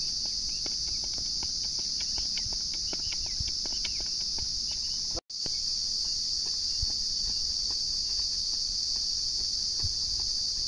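Steady, high-pitched chorus of insects chirring, with light, quick footfalls of a runner on a dirt track. The sound cuts out for a moment about five seconds in, then carries on the same.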